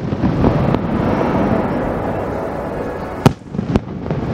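Aerial fireworks display: a steady low rumble, then two sharp bangs of shells bursting about half a second apart near the end, the first the louder.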